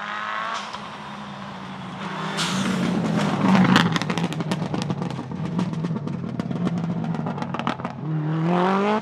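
Turbocharged EJ20 flat-four of a 2006 Subaru Impreza WRX STI Spec C rally car with equal-length headers, coming past at speed. The engine note holds steady while a rapid string of sharp exhaust pops and crackles runs for several seconds. Near the end the revs climb as it accelerates away.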